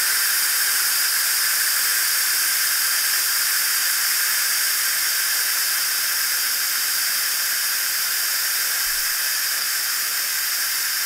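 Steam jetting from the pressure release valve of an Instant Pot Lux 6-in-1 electric pressure cooker, a loud, steady hiss as the pot vents at working pressure.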